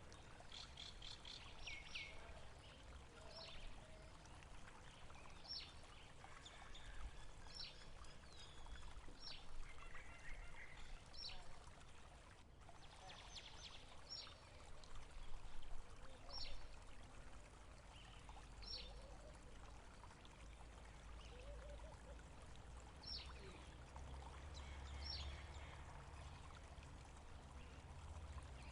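Water flowing steadily, with small birds giving short, high, falling calls every second or two over it.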